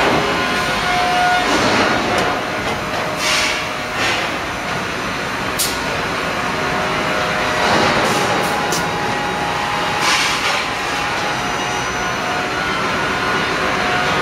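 Sawmill line running: powered roller conveyor tables carrying sawn timber cants, a steady loud mechanical clatter and rumble with a few sharp knocks.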